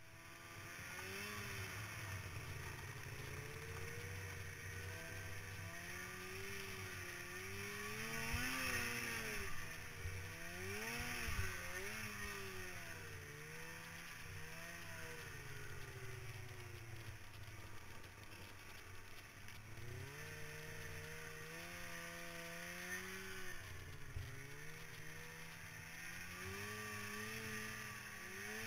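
Snowmobile engine running under way, its pitch rising and falling again and again as the throttle is worked, with a few knocks and clatters along the way.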